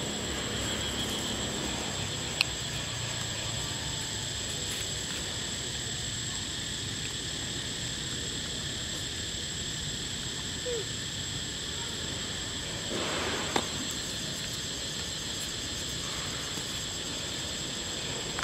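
Outdoor ambience: a steady high insect drone over a low rumble, with a sharp click about two seconds in and another around thirteen seconds.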